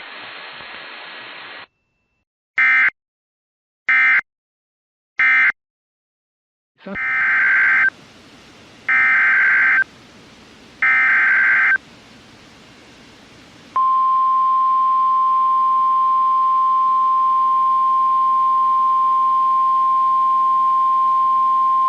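Emergency Alert System signalling from NOAA Weather Radio. First come three short screechy end-of-message data bursts about a second and a half apart. After a pause, three longer header data bursts open the next warning. Then the steady single-pitch 1050-hertz weather-radio alert tone sounds for about nine seconds.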